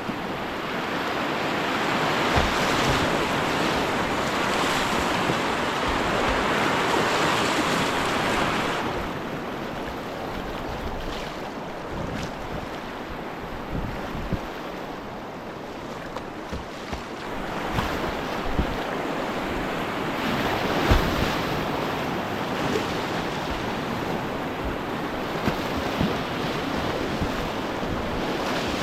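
Rushing river whitewater. It is louder for the first third and again after the middle, with a few short thumps scattered through.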